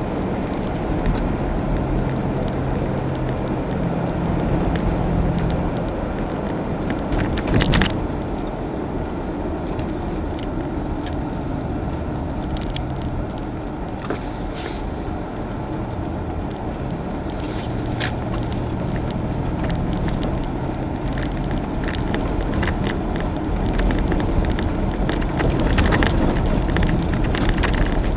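Car cabin noise while driving on snow-packed streets: a steady rumble of the engine and of the tyres on packed snow, with the engine's low hum rising and fading in spells. A few short knocks and rattles break through, the loudest about seven or eight seconds in.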